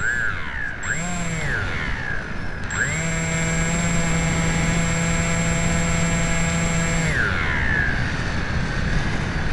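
Brushless electric motor and propeller of an AXN Floater RC plane, recorded onboard over heavy wind rush. A short throttle blip comes about a second in. About three seconds in the motor spools up to a steady whine, holds for about four seconds, then winds down.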